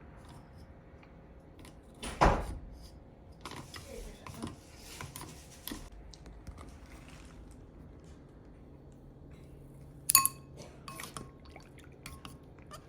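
Rocks being fished out of a rock tumbler barrel of gritty water: dripping and small scrapes, with a loud thump about two seconds in and a sharp, ringing clink about ten seconds in.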